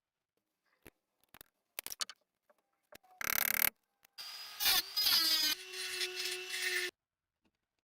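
A small power tool running for about three seconds with a steady hum, after a few light clicks and a short burst of scraping noise.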